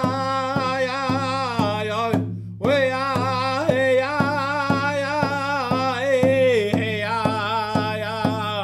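A man singing an Assiniboine honor song in a high voice with a wavering pitch, keeping time on a hand drum beaten with a stick about twice a second. Voice and drum break off briefly about two seconds in, then go on.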